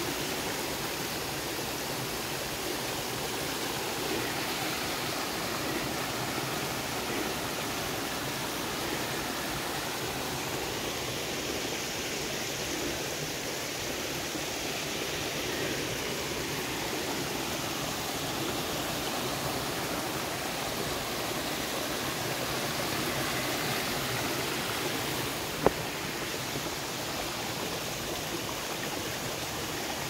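Mountain creek running steadily over rocks, a constant rush of water. A single sharp click stands out about three-quarters of the way through.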